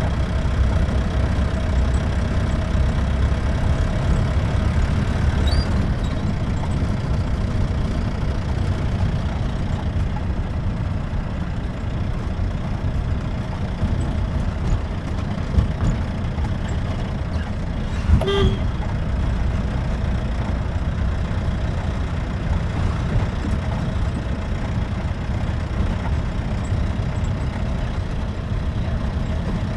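Jeep engine running steadily under way, with low road rumble heard from on board. A single brief sharp sound cuts in a little past halfway.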